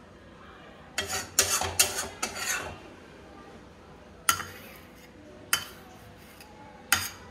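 Metal spoon scraping and clinking against a cooking pan. There are four quick scrapes starting about a second in, then three single clinks a little over a second apart.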